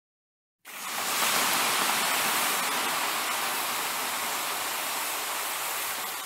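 A steady rushing noise, even and without any tone or rhythm, starting abruptly about half a second in.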